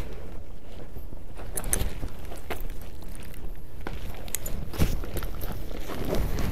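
Body-worn camera handling noise: clothing rubbing and rustling against the microphone as the wearer moves, with a few sharp knocks and steps scattered through.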